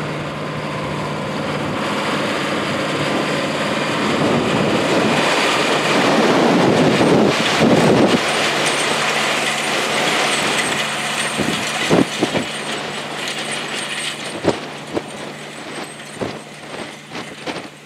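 The V8 diesel engine of a Versatile 700 four-wheel-drive tractor working under load as it pulls a chisel plow: a steady engine drone that grows louder as the tractor passes close, peaks about seven seconds in, then fades as it pulls away. A few sharp knocks come in the second half.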